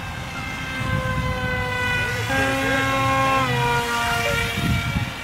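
Electric motor and propeller of an RCPowers F-22 foam RC jet whining at a steady pitch, growing louder about a second in, then dropping in pitch a little over three seconds in as the throttle comes back.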